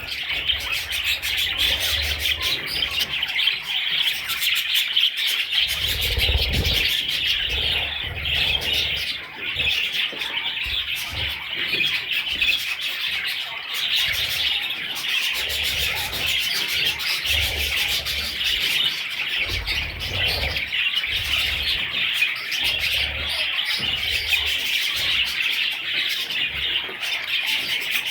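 A flock of budgerigars chirping and chattering without a break, many calls overlapping, with intermittent low rumbles underneath.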